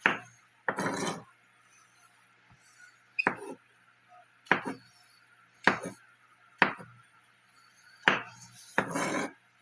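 Kitchen clatter: about eight sharp clinks and knocks, roughly a second apart, from utensils and dishes being handled, with a longer scraping clatter near the start and another near the end.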